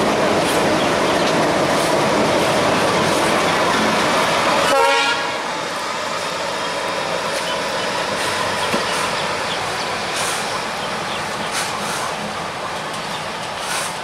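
Indian Railways WDM3D diesel-electric locomotive running light past at close range, its engine loud for the first five seconds. A short horn toot comes about five seconds in, then the engine sound drops to a quieter, steady level as the locomotive moves away.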